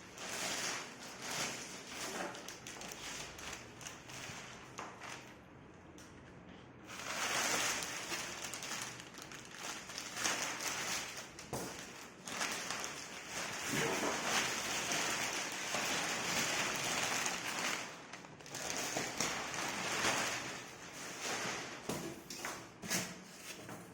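Plastic packaging wrap rustling and crinkling in uneven surges as it is pulled off and handled, with brief pauses.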